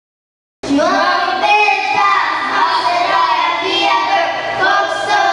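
A group of children singing together into microphones, starting abruptly about half a second in.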